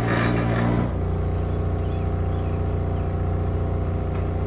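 Power sander running steadily while walnut roost bars are sanded smooth. Its motor drops to a lower pitch about a second in and holds there.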